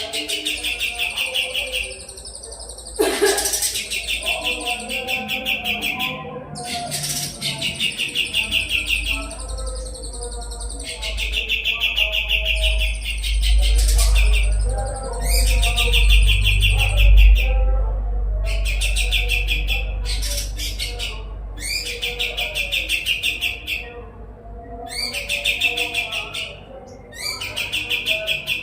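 Kapas tembak songbird singing sharp, rapid trilled phrases, each a second or two long, repeated with short pauses between them. A low rumble runs under the song through the middle stretch.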